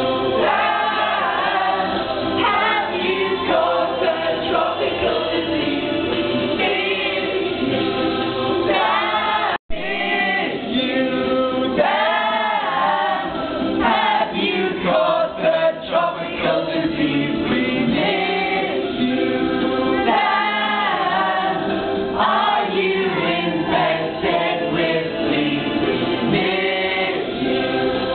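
A group of young men and women singing loudly together in chorus, mostly unaccompanied. The sound cuts out for a split second about ten seconds in.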